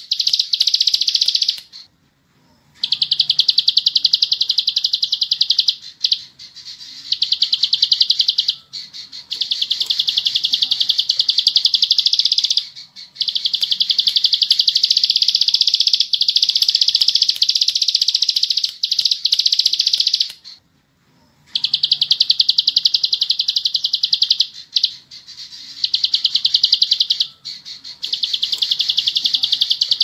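Ciblek sawah (plain prinia) singing its 'bren' song: a very rapid, high trill of repeated notes in stretches of one to four seconds, broken by short pauses.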